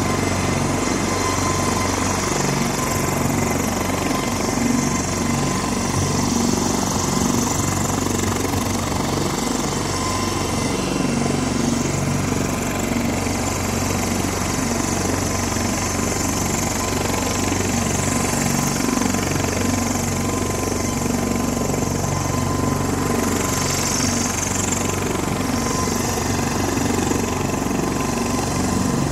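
Helicopter's turbine engine and rotor running steadily on the ground: a low hum with a thin, steady whine over it.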